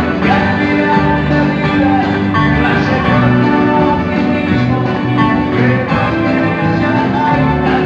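Live band music, loud and continuous, led by electric guitar with sustained melody notes over the band.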